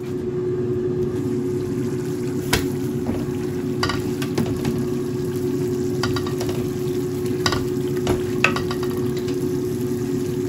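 A large pot of cassava leaves in palm oil boiling hard with bubbling and spattering while a wooden spoon stirs it, knocking against the pot now and then, over a steady hum.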